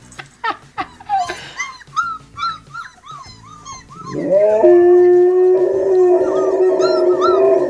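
Husky puppies crying from a played video: a run of short, high whimpers that rise and fall. About four seconds in, a dog starts one long howl that rises in pitch and then holds steady, the loudest sound, with the puppy cries still going over it.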